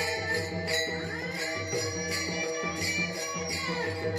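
Voices singing a Marathi Warkari devotional bhajan through a PA, with small brass hand cymbals (taal) clashing together on a steady beat about every three-quarters of a second.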